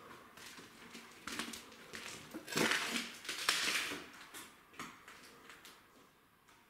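Footsteps scuffing and crunching over broken debris on the floor, a string of irregular crunches that are loudest a little past the middle and fade near the end.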